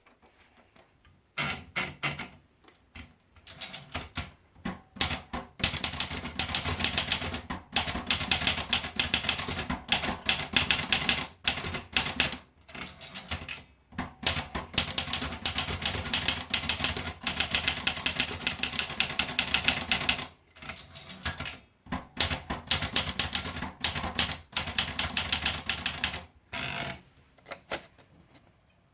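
Olivetti Lettera 35 manual portable typewriter being typed on: fast runs of key strikes starting about a second and a half in, broken by a few short pauses.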